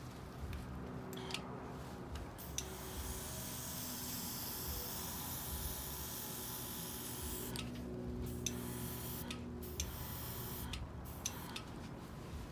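Airbrush spraying ink: a steady hiss of air from the nozzle, held unbroken for about five seconds in the middle, with shorter on-off bursts of hiss before and after.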